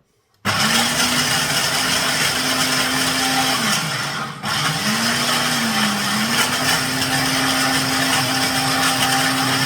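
Small electric blender grinding roasted cashews and hard cheese: the motor switches on suddenly about half a second in and whirs loudly, its pitch dipping and rising as the load shifts. It cuts out for a moment a little after four seconds in, then runs again.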